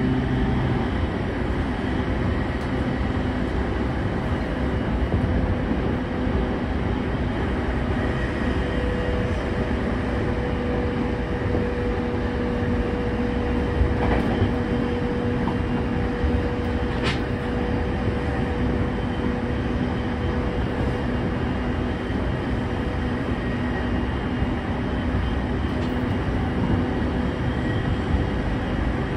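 Running noise inside a JR E231-0 series electric train's motor car: a steady rumble of wheels and underfloor equipment with a constant hum, and a couple of brief clicks about halfway through.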